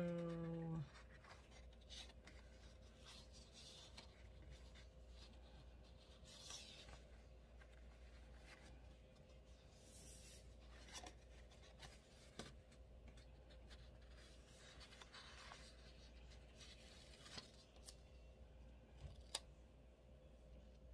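Near silence with faint paper rustles and a few soft clicks as sticker-book pages are handled and a paper sticker is peeled and set on a planner page, over a faint steady hum.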